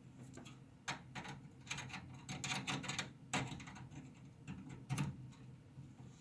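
Faint, irregular light clicks and knocks of plastic computer hardware being handled, as a USB cable is plugged into a hub and the gaming keypad is set down and touched, over a faint low hum.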